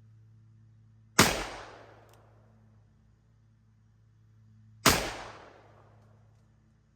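Two shots from a Ruger Blackhawk revolver in .41 Magnum, firing Underwood 210-grain XTP loads, about three and a half seconds apart. Each is a sharp crack that dies away over about a second.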